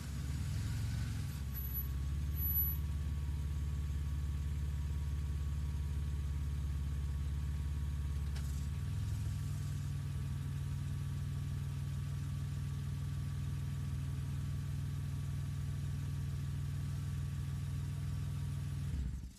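1996 Ford Falcon engine idling steadily, its low note shifting slightly about nine seconds in. The sound stops just before the end.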